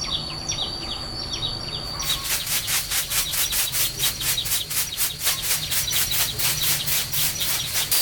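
Short, high, falling bird chirps for about two seconds. Then a steady rhythmic rasping, about three to four strokes a second.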